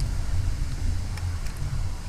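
Wind buffeting the microphone: an uneven low rumble that wavers up and down, with a couple of faint ticks.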